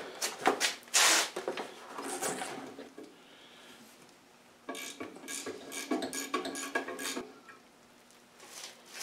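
Metal clicks, rattles and scrapes of hands and a wrench working loose the brass fittings on an air compressor's gauge manifold. The noise comes in two spells of a few seconds each, with a short pause between.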